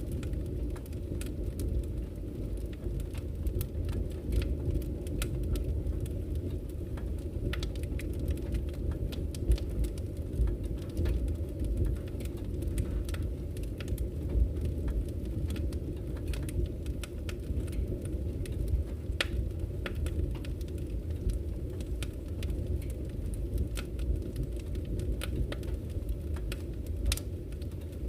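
Wood fire burning in a fireplace: a steady low rumble of flames with frequent small, irregular crackles and pops from the burning logs.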